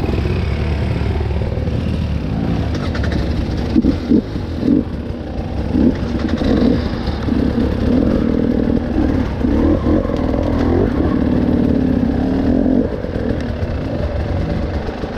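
Off-road motorcycle engine revving up and down over and over, with a heavy low rumble underneath.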